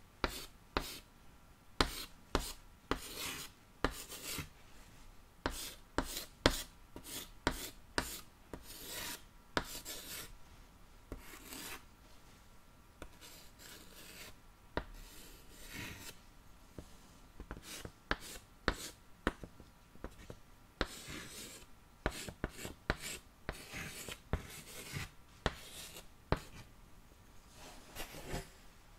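A pen scratching on paper in short, irregular strokes, as in handwriting, picked up close on the microphone, with a few brief pauses.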